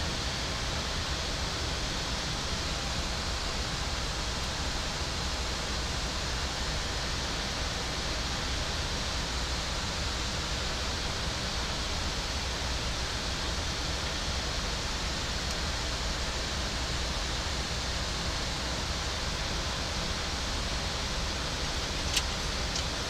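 Steady rushing cabin noise on the flight deck of a Boeing 737 MAX 8 in the climb: air streaming around the cockpit and its ventilation, an even hiss with no pitch. A couple of sharp clicks near the end.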